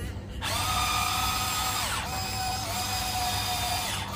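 Huina 1594 RC excavator's small electric motors whining as the upper body swings and the arm moves. The whine rises in pitch as it starts about half a second in. It falls and briefly breaks around two seconds in, then runs on and stops and restarts near the end.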